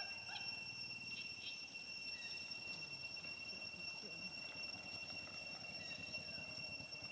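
Outdoor ambience: a steady high-pitched whine, with a few short chirps in the first second or two and a low rumble underneath.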